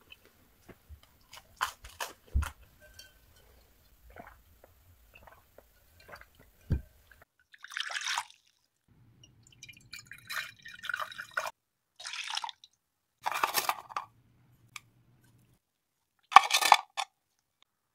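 Ingredients poured in short bursts into a pot of soy-sauce marinade for salmon and stirred with a metal spoon. Before that come a few faint, scattered clicks.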